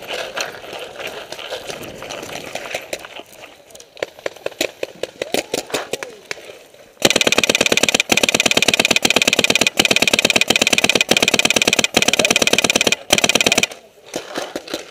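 Paintball marker firing a rapid, continuous stream of shots. It starts suddenly about halfway through, pauses briefly near the end, then cuts off. It follows a quieter stretch of scattered pops.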